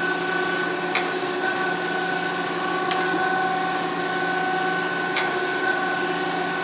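DoAll D-10 hydraulic surface grinder running and grinding, a steady hum and whine with a short sharp click about every two seconds, three times, as the reciprocating table reverses at the end of each stroke.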